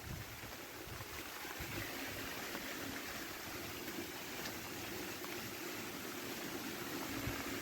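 Stream water running steadily with an even rushing sound, with a faint steady low hum underneath in the second half.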